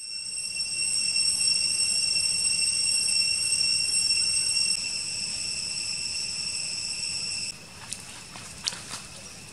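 Loud, steady, shrill chorus of forest insects, several high continuous tones at once, which cuts off abruptly about seven and a half seconds in. After it, quieter footsteps and rustling in dry leaves on a dirt path, with a few light clicks.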